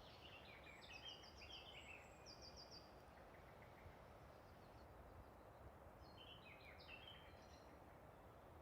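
Near silence: faint outdoor ambience with a few bird chirps, in two short clusters, one in the first couple of seconds and another about six to seven seconds in.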